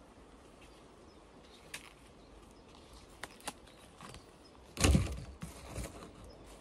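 Rustling and faint snaps of leek leaves being stripped and handled by hand, with a loud rustling thump about five seconds in as the leaves brush against the microphone.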